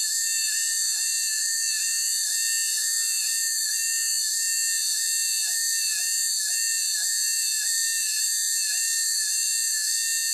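High-speed cutter on a rose engine lathe's belt-driven cutting frame, spinning with a steady high-pitched whine as it cuts a ribbed pattern into a small wooden spindle. The whine pulses evenly about three times a second.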